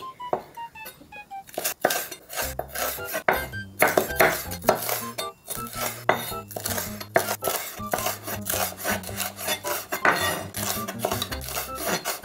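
Chef's knife slicing green peppers into thin strips on a wooden cutting board: repeated knife taps against the board, about two a second, with soft background music underneath.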